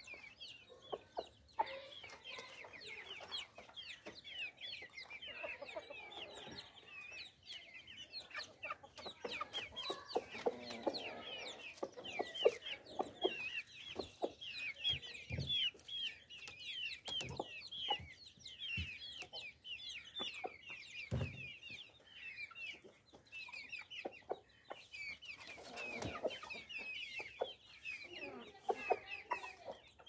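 Aseel chickens clucking, over a constant fast, high-pitched chirping, with a few sharp taps now and then.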